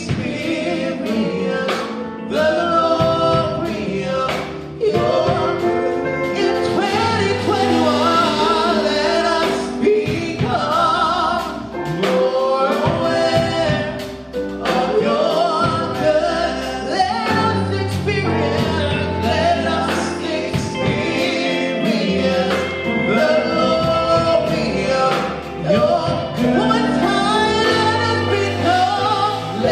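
Live gospel worship song: a woman sings lead into a microphone, backed by a band on drum kit, guitars and keyboard.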